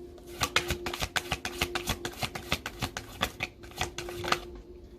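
A deck of tarot or oracle cards being shuffled by hand: a rapid run of card clicks lasting about four seconds.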